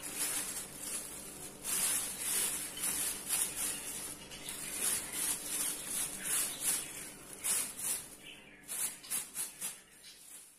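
A surface being scrubbed or wiped by hand during cleaning: quick, irregular rubbing strokes with a hissy, swishing quality, thinning out into a few separate strokes near the end.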